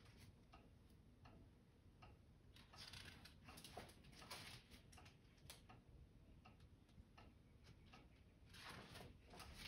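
Near silence, with faint scattered rustles and light taps of a hardcover picture book's pages being turned and handled.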